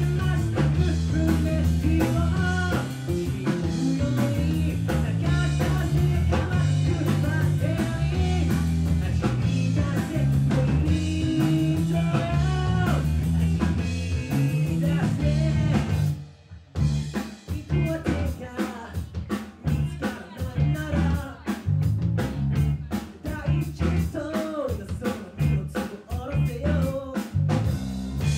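Live rock band playing: a male singer over electric bass guitar and drum kit. About sixteen seconds in the band stops dead for a moment, then comes back in sparser, with sharp drum hits under the singing.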